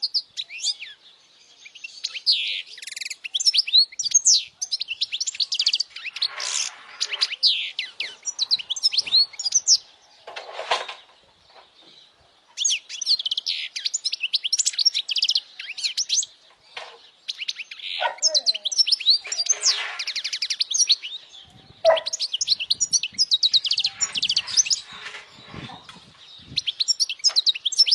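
European goldfinch singing: fast, high twittering and chirping phrases in bursts of several seconds, broken by short pauses.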